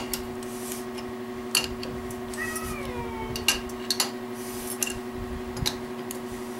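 A wrench on the crankshaft nut of an MG 1275 short block clicking and knocking as the engine is turned over by hand, a handful of separate clicks over a steady background hum. One short falling squeal comes about two and a half seconds in.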